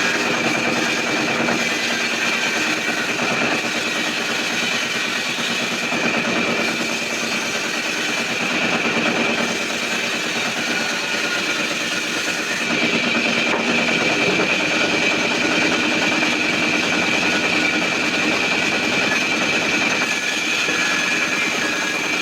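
Sawmill saw machine running and cutting timber: a steady mechanical drone with a constant high-pitched whine.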